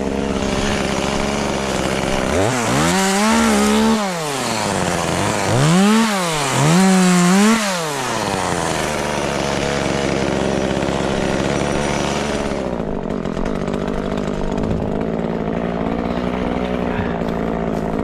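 Chainsaw engine running at idle and revved up three times in quick succession, each time rising to a high pitch and dropping back, then running on steadily.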